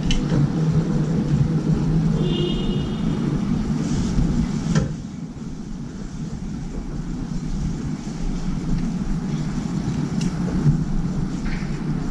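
Steady low rumble of city traffic, which eases a little after a sharp click about five seconds in. A short high tone sounds between two and three seconds in, and a few more sharp clicks come near the end.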